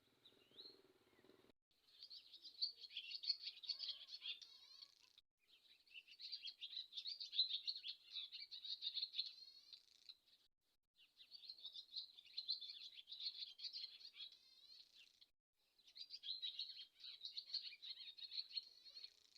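A swallow singing: four long bouts of rapid, high twittering warble, each a few seconds long, with short pauses between them.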